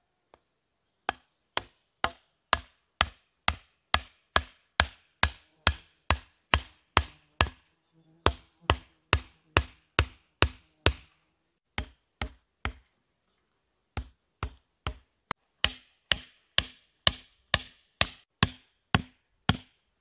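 Hatchet head hammering a wooden stake into the ground: sharp wooden knocks with a short ring, about two blows a second. The blows break off briefly past the middle, then a short run of three, then steady blows again.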